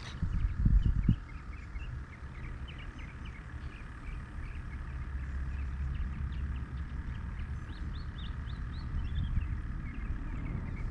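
Small birds chirping repeatedly over a steady low rumble, with a few loud knocks about half a second to a second in.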